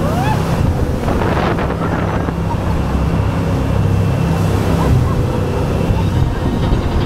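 Amusement-ride speed boat running fast through water: steady rushing water and spray along the hull, with heavy wind buffeting on the microphone.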